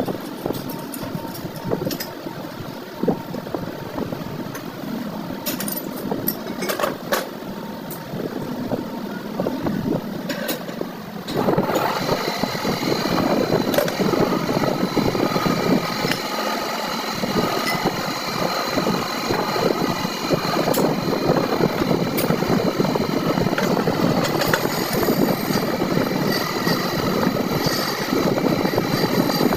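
Scattered clicks and light workshop noise, then about eleven seconds in a motor starts and runs steadily, louder, with a high whine, as from a motor-driven workshop tool.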